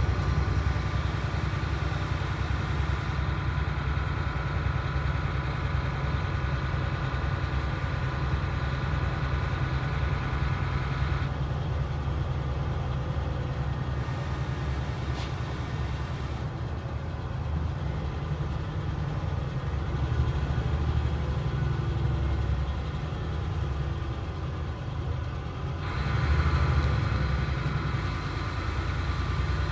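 Interior noise of a DAF SB4000 Jonckheere bus under way, heard from a passenger seat: a steady low diesel engine and drivetrain rumble. A higher whine over it fades out about a third of the way in and comes back louder near the end.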